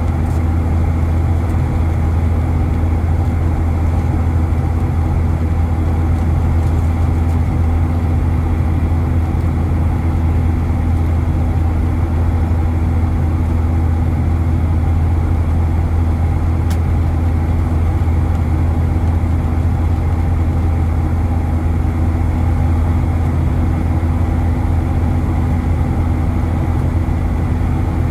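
Cabin noise inside a Boeing 737-900ER in flight, heard from a window seat beside the wing: the CFM56-7B turbofans and the airflow give a steady, deep drone with a constant hum.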